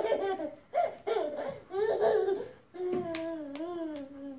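Baby laughing in short bursts, then a longer drawn-out vocal sound whose pitch slowly falls.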